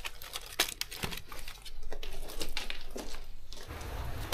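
Dry tinder and small sticks being gathered and handled by gloved hands: irregular crackling, snapping and rustling of dry plant debris and wood. A low rumble sets in near the end.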